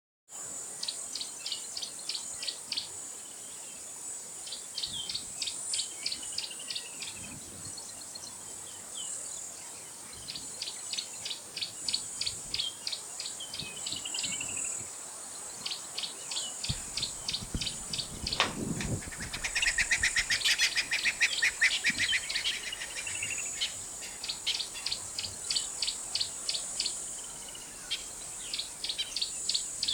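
Bush ambience: a steady high insect drone under repeated bird calls, each a quick run of sharp notes, with a louder, denser run of calls about twenty seconds in. A brief low rumble comes just before it.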